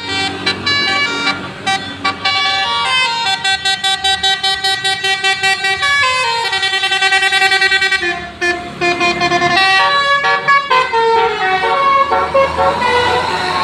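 Indonesian bus 'telolet' musical air horns playing rapid multi-note tunes: quick stuttering bursts of chord-like notes, a long downward slide between about six and eight seconds in, then more fast notes.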